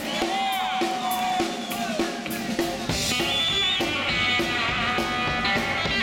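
Live rockabilly band playing: an electric guitar lead with bent, held notes over a steady drum beat, the bass filling in about halfway through.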